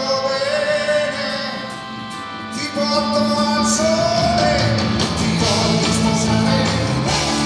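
Live rock band playing with a male lead singer singing into a microphone. The sound thins out about two seconds in, then the full band comes back in with a steady bass line about a second later.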